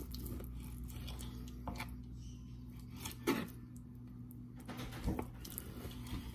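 Kitchen knife slicing raw chicken breast on a cutting board: a few scattered knocks of the blade against the board, the loudest a little past three seconds in, over a steady low hum.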